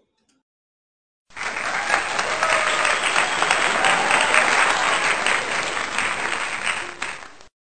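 Crowd applause, starting abruptly about a second in and cutting off sharply near the end.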